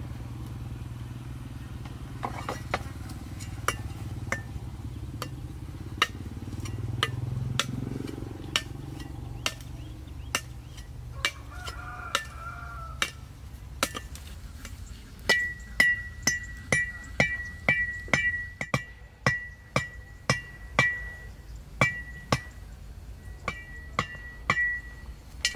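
A metal knife blade striking bamboo stakes, the stakes being cut and driven into the ground: scattered single strikes at first, then from about halfway a quicker, louder run of about two strikes a second, each with a short high metallic ring.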